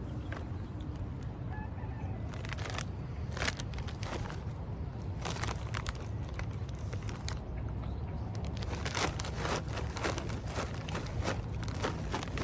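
Chewing of popcorn and crunchy Cap'n Crunch cereal berries: a run of crisp crunches, closer together in the second half, over a steady low hum.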